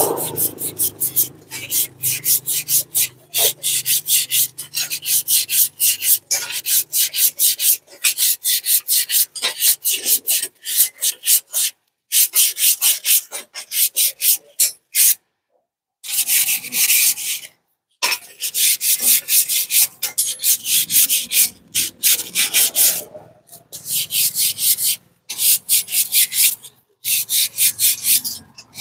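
Rapid back-and-forth rasping of an abrasive rubbed by hand along a Nissan's steel coil suspension spring, about three strokes a second with a few brief pauses. It is scouring off old paint and rust before a repaint.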